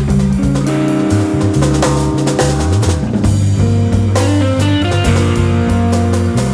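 Live instrumental jazz-rock trio playing: drum kit with snare, bass drum and cymbal hits, an electric bass holding low notes with a couple of slides, and guitar lines above.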